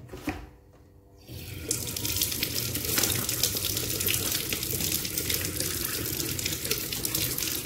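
Water streaming and splashing in a pot as boiled cassava and papaya leaves are lifted out of their cooking water with tongs. It starts about a second in and goes on steadily.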